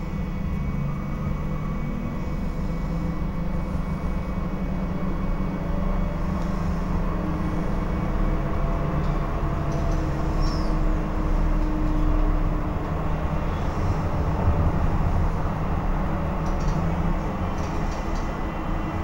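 Interior running noise of a Stadtbahn light-rail car in motion: a steady low rumble of wheels on the track, with a few faint whining tones over it.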